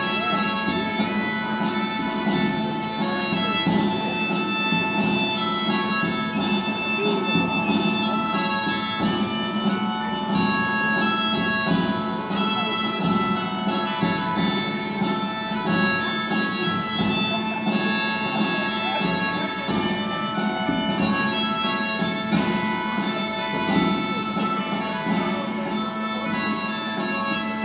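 Bagpipes playing a tune over a steady drone.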